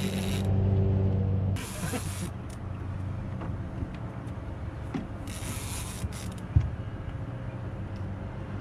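A boat motor runs with a steady hum that is louder for the first second or so. Two short bursts of splashing water cut through it, and a sharp thump comes about six and a half seconds in.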